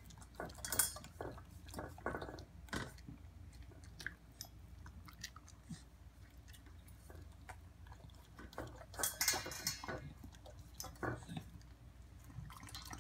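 Corgi licking and chewing at a stainless steel bowl: irregular wet smacks and tongue clicks, busiest near the start and again about nine seconds in.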